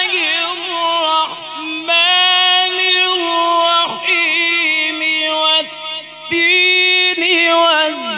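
A male qari reciting the Quran in the melodic tajweed style, held long ornamented notes with a wavering pitch, in several phrases broken by short pauses for breath.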